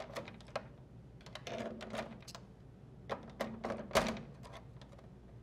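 Needle-nose pliers pulling wire spade terminals off a dryer timer's connectors: faint, scattered clicks and taps with some rustling of the wires, and a sharper click about four seconds in.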